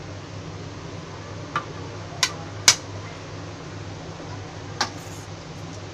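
Four sharp taps of a kitchen knife on a wooden chopping board as baby corn is cut into pieces, the third the loudest, over a steady low hum.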